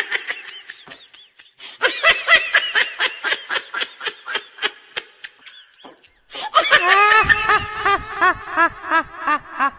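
High-pitched giggling laughter in two long runs of quick 'hee-hee' syllables, about four a second, each falling in pitch. The first run fades out about five seconds in, and a louder run starts just past six seconds.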